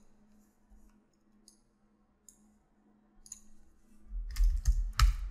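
Computer mouse and keyboard clicks: a few faint, scattered clicks, then a quick run of louder clicks with dull knocks on the desk from about four seconds in, as vertex weights are set in the software. A faint steady hum lies underneath.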